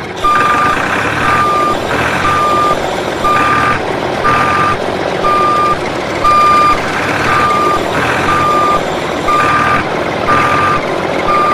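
Vehicle reversing alarm beeping steadily, about once a second, over a running engine, with a short rush of noise between the beeps.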